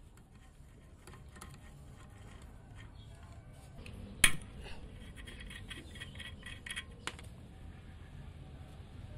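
Hand tools clinking on the rusty steel fittings of an old D8 diesel engine's fuel line as a fitting is worked loose with a wrench: scattered light metal clicks, one sharp clack about four seconds in, then a run of quick light ticks.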